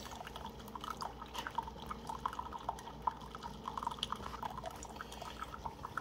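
Keurig coffee maker dispensing a thin stream of water into a ceramic mug during its descaling cycle: irregular small splashes and drips over a low steady hum.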